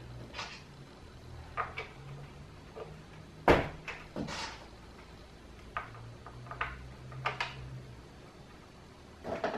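Hard plastic parts of a ride-on toy knocking and clicking as they are handled and pressed together, with one louder knock about three and a half seconds in and a quick cluster of clicks near the end.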